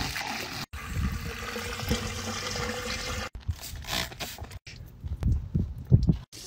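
Water from a garden hose running into a car's exhaust tip, broken by several abrupt cut-offs, with a few dull bumps in the last couple of seconds.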